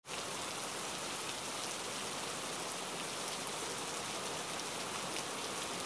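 A steady, even hiss of background noise that sounds like rain.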